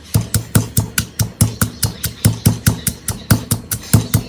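Pestle pounding galangal and chilli in a mortar in quick, even strokes, about five a second, each a dull knock, to grind the soup's spice paste.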